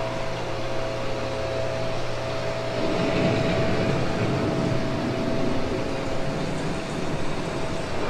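Storm-scene sound effects of a dark-ride soundtrack: a steady electric hum, then a low rumble of thunder swelling in about three seconds in and rolling on.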